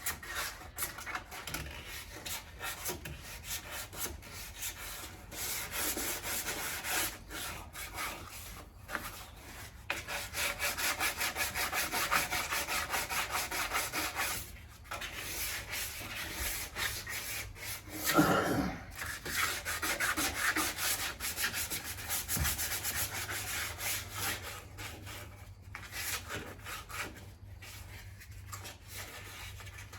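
Sandpaper scrubbed back and forth by hand over car body panels, in quick rasping strokes with a few short pauses. A brief louder sound breaks in about two-thirds of the way through.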